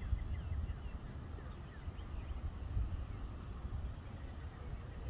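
Outdoor ambience: an uneven low rumble with a few faint, high bird chirps now and then.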